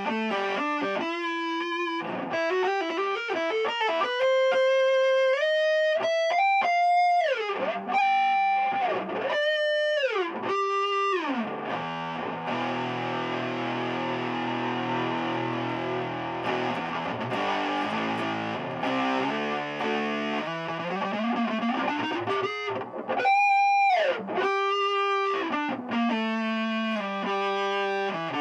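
Electric guitar played through a Keeley Compressor Mini, an Electro-Harmonix Nano Big Muff Pi fuzz and an EHX Soul Food overdrive, all switched on: a distorted, sustaining lead line of long held notes with bends and slides, with a stretch of held chords about halfway through.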